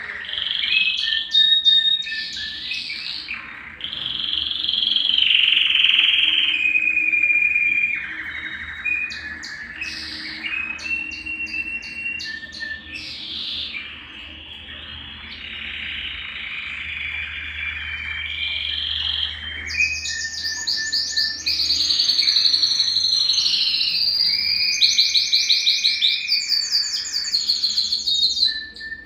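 Domestic canary (Belgian canary) singing a long continuous song of warbles, whistled notes and trills, with long fast rolls of rapidly repeated notes in the second half.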